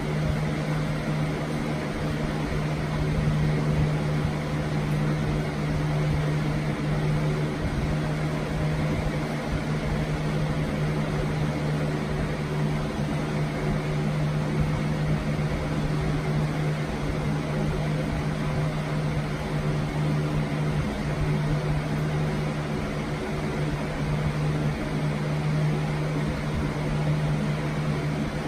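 Steady machine hum with an even rushing noise over it, as from a running fan or similar appliance, unchanging in level.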